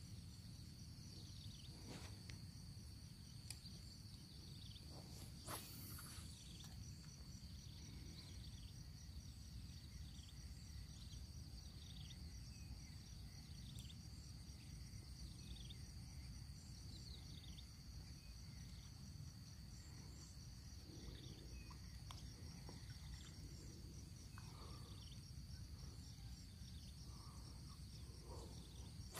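Faint natural ambience: a steady high-pitched insect buzz with a fast pulsing trill, a short falling chirp repeated about once a second through the middle, and a low background rumble.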